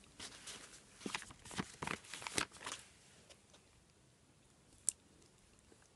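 Paper sticker being peeled from its backing sheet and pressed onto a planner page: a run of crackly paper rustles over the first three seconds, then a single sharp click near five seconds.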